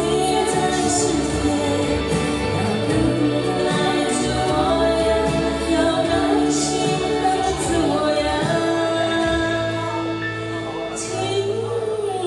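Music: a song sung with long held notes, with the deepest bass notes dropping away about two-thirds of the way through.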